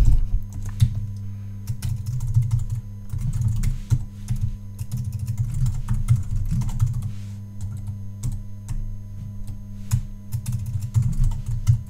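Typing on a computer keyboard: a run of irregular keystroke clicks with short pauses, over a steady low hum.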